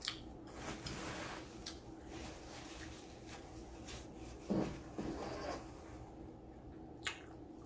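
Faint small clicks and rustling handling noises, with a short louder thump about four and a half seconds in.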